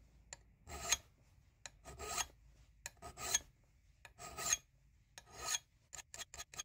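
A flat hand file rasping across the steel bit of a Gränsfors Bruks Wildlife hatchet, filing out a chip in the edge. There are five long strokes about a second apart, then a quick run of short strokes near the end.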